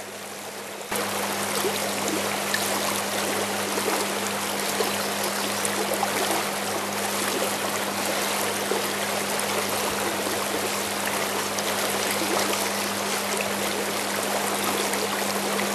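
Fast river current rushing through a shallow riffle, a steady even rush of water that gets louder about a second in.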